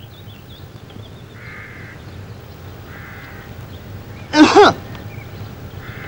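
Crow cawing: one harsh call of two quick notes about four seconds in, over faint background noise.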